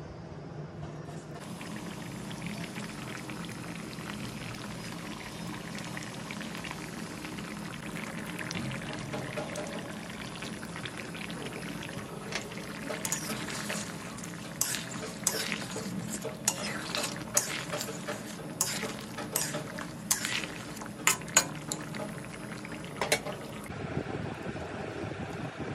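Mutton frying and sizzling in a pan as it is cooked down for kosha. About halfway through, it is joined by irregular sharp clicks and knocks as the meat is stirred.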